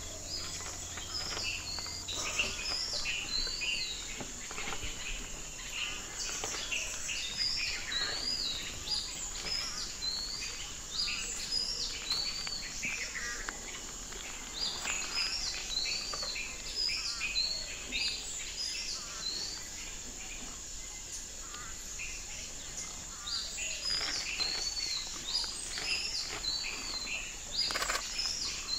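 Birds singing short, repeated whistled phrases in bouts of a few seconds, over a steady, high-pitched insect drone.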